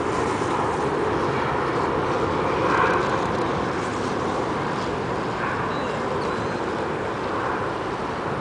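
Boeing 747's four jet engines at takeoff power, a steady rumbling rush that fades slowly as the plane climbs away.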